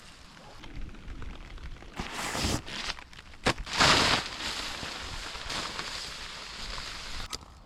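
Campfire being lit: a few rushing, scraping bursts, the loudest about four seconds in, then a steady hiss of flame.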